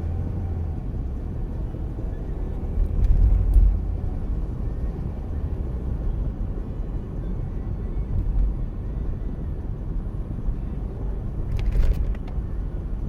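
Steady low rumble of a car heard from inside the cabin, engine and road noise, swelling louder about three seconds in, with a few faint clicks near the end.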